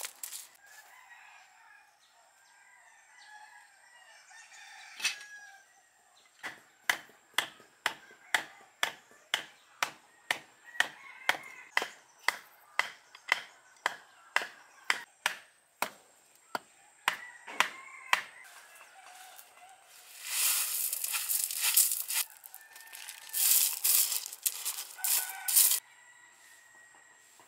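A bamboo stake being driven into the ground with a bamboo mallet: about two dozen sharp knocks at roughly two a second. A few seconds later, pebbles rattle as they are scooped and poured into a bamboo planter.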